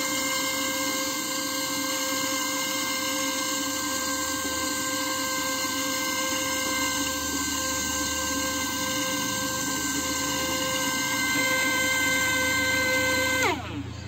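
Small DC motor of a homemade plastic-bottle vacuum cleaner running with a steady high whine while it sucks up loose foam bits. Near the end the whine drops in pitch and dies away as the motor spins down.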